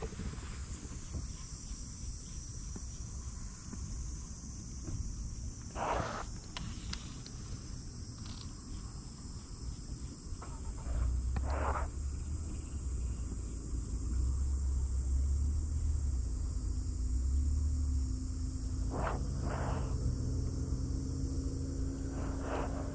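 A steady, high-pitched buzzing of insects, with a low rumble of wind on the microphone through the middle stretch.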